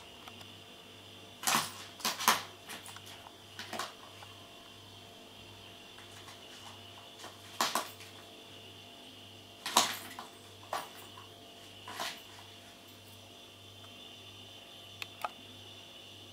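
A cat batting at a plastic circular track toy, the ball and plastic parts clattering and clicking in scattered bursts: a cluster of sharp clacks about one and a half to two and a half seconds in, more near eight, ten and twelve seconds, and two light clicks near the end.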